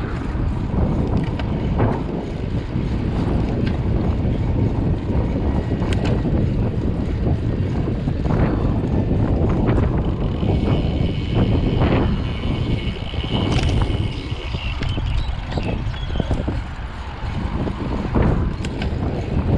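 Wind rushing over the microphone of a moving road bike: a steady low rumble with occasional small clicks, and a faint high tone for a few seconds around the middle.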